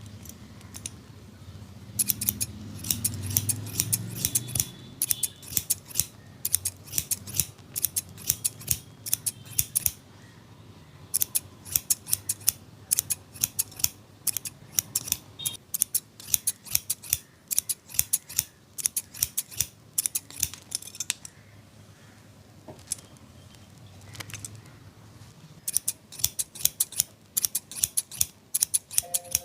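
Barber's scissors snipping hair in quick runs of sharp cuts, with short pauses between runs and a longer pause of a few seconds late on.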